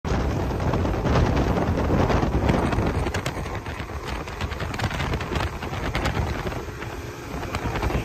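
Wind buffeting the microphone aboard a speedboat under way, with the rush of the hull moving through choppy water. The noise is gusty and uneven, heaviest in the first few seconds.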